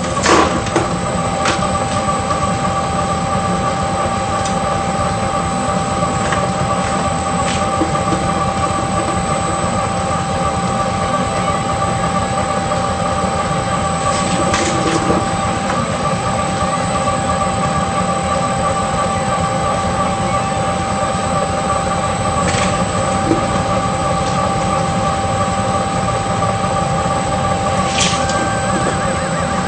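Shredder machine running steadily with a constant whine over a low rumble, with a few sharp clicks scattered through.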